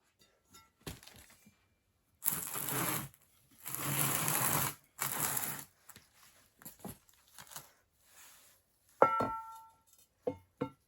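Hands-on work on the metal parts of a Safetran mechanical railroad crossing bell: three rough hissing, scraping strokes, then a sharp metallic clink that rings briefly at two pitches, followed by a few light clicks of metal parts.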